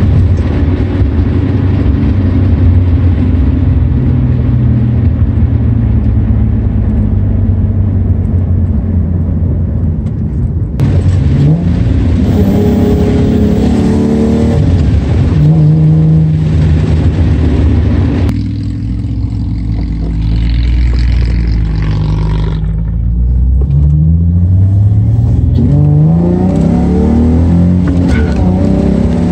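Ford Mustang V6 engine pulling through the gears, its pitch climbing as it revs up, easing off at the shifts, then climbing again near the end. Heard from inside the cabin with the windows open, with wind noise over it.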